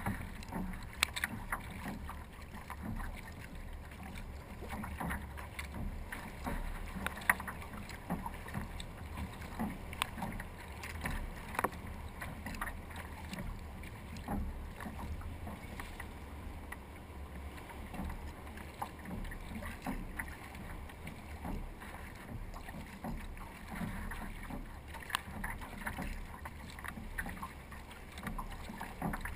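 Water lapping and splashing against a kayak's hull as it moves, with scattered small splashes and drips over a low steady rumble.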